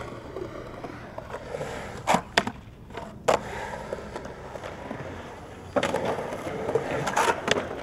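Skateboard wheels rolling on concrete, broken by several sharp clacks of the board and trucks hitting down. About six seconds in the rolling gets louder.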